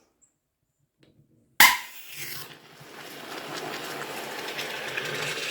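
A bottle of over-carbonated water kefir bursting open with a sudden loud pop about a second and a half in, followed by a steady hiss of foam gushing out. The bottle had built up far more carbonation than it should have.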